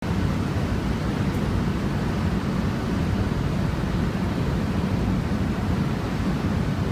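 Steady low rumbling noise, even throughout with no distinct events.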